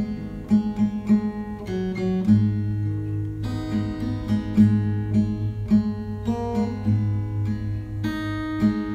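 Background music: an acoustic guitar playing plucked and strummed notes over a steady low bass line.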